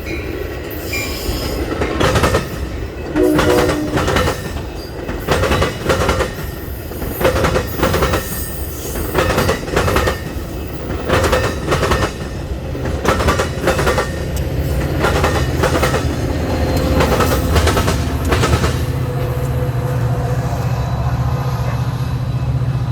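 Train rolling past, its wheels clicking over rail joints in quick pairs about every second or so. The clicking stops near the end, leaving a steady low engine hum.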